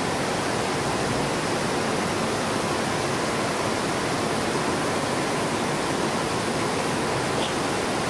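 Heavy rain falling on a translucent plastic roof overhead, a steady, dense hiss with no break.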